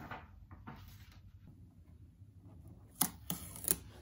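Soft rustle of a paper setup guide's pages being turned. Near the end come three sharp clicks and snaps as a new HP DeskJet printer is unpacked and its blue packing tape is pulled off.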